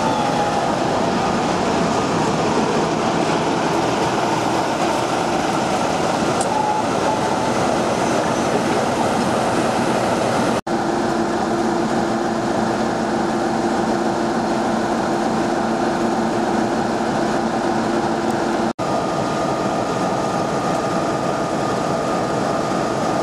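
British Rail Class 45 'Peak' diesel-electric locomotive's Sulzer 12-cylinder engine running with a steady note as the locomotive moves slowly past hauling coaches. The sound cuts out for an instant twice.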